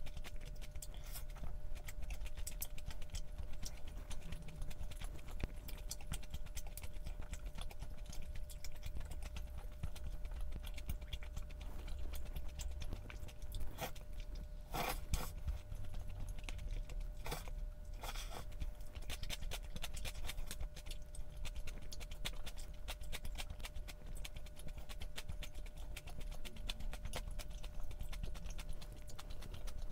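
A person eating close to the microphone: chewing, with many small sharp clicks throughout and a few louder clatters about halfway through.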